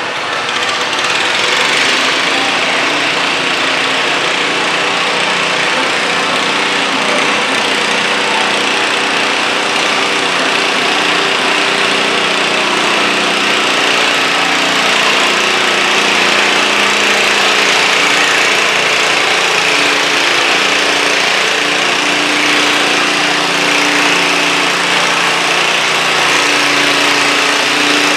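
Stock garden tractor's single small engine running hard and steady under load as it drags a weight-transfer sled, getting louder in the first second as the pull gets under way.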